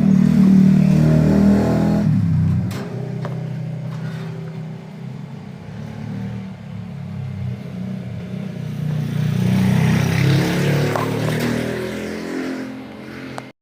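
A motor vehicle engine running and revving, loudest in the first two seconds and again about ten seconds in.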